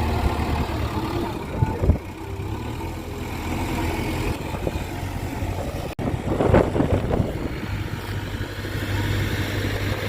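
Heavy diesel engine running steadily with a low hum, with short loud knocks about two seconds in. The sound breaks off abruptly around six seconds in, then comes a louder rough burst before the steady running resumes.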